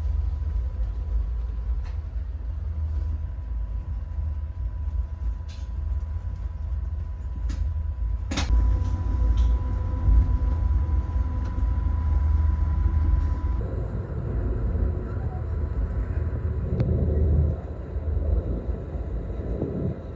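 Low rumble of the Amtrak Coast Starlight passenger train running along the tracks, with a few sharp clicks and knocks. The sound changes abruptly about two-thirds of the way through.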